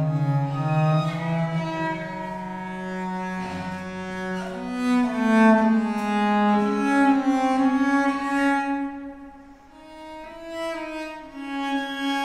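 A violin and a viola da gamba bowing together in slow, sustained notes, the gamba holding low notes beneath the violin's line. The playing thins to a brief hush about three-quarters of the way through, then both pick up again.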